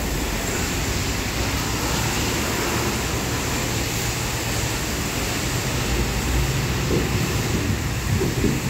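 Steady rushing noise with a strong low rumble throughout, with a few soft knocks near the end.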